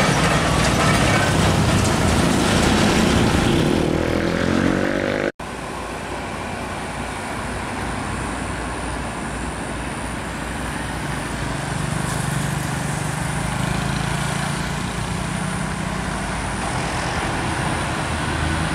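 Old Mitsubishi Fuso truck's diesel engine running loud as it drives past, its pitch rising as it pulls away. About five seconds in, the sound cuts abruptly to steadier road traffic noise from oncoming trucks, cars and motorcycles, with a low engine hum swelling midway.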